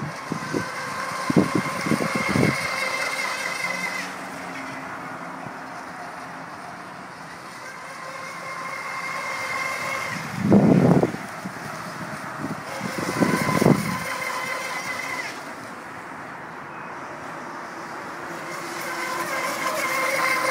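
High-pitched whine of a small RC speedboat's electric motor and propeller, growing louder and fading away three times as the boat makes passes. Several short low thumps break in, the loudest about ten seconds in.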